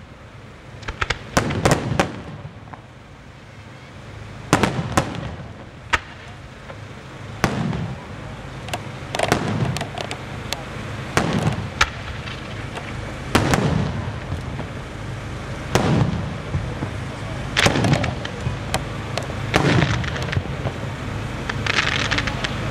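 Aerial firework shells bursting in a display: sharp bangs about every two seconds, each followed by a trailing echo. Near the end a steadier hissing crackle builds up as low-level effects fire.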